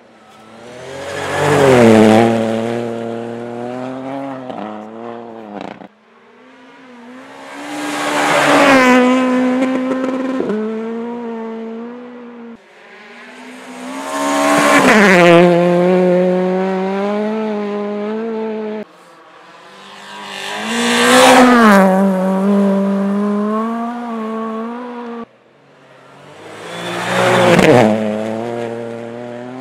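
Five rally cars racing past one after another, in separate cuts. Each engine note climbs in pitch and level as the car approaches, peaks as it goes by, then drops in pitch and fades as it pulls away.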